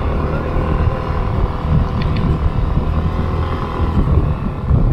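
Motor scooter running as it is ridden along the road, a steady engine rumble.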